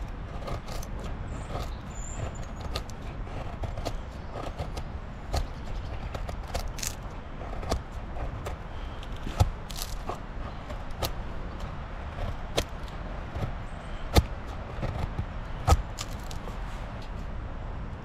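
Peltonen Ranger Puukko M07 knife shaving curls down a wooden stick to make a feather stick: repeated short scraping strokes, with a few sharper knocks about halfway through and near the end, over a steady low rumble.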